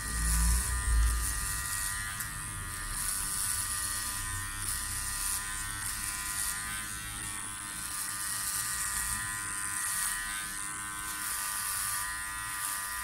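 Powertec TR-1700 cordless hair clipper running with a steady buzz as it is pushed up through short hair at the back of a head. There are a couple of low thumps in the first second or so.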